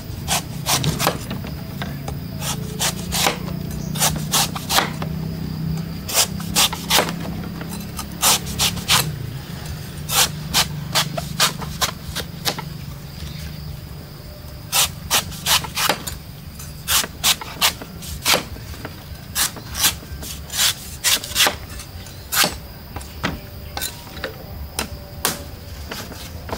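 Cleaver chopping into the soft white husk of a young coconut on a wooden chopping stump, in irregular runs of sharp strokes with short pauses between them.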